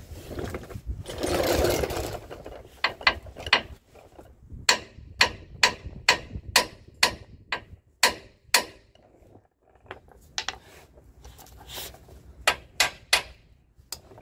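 A hammer striking the steel front suspension over and over, about two blows a second, to knock the lower ball joint loose from the swing arm. The blows come in two runs with a short pause between them, after a brief rush of noise about a second in.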